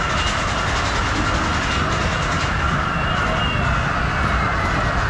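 Hydraulic airplane kiddie ride spinning, a steady mechanical rumble with a faint high whine drifting in pitch. Wind buffets the microphone as it rides along.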